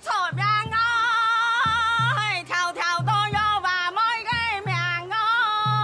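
Hakka folk singing in the dialogue style of a mountain song: a single high voice carries a melody in long held, wavering notes over a low, regularly pulsing accompaniment.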